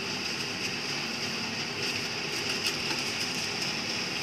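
Steady hiss with a few faint light clicks.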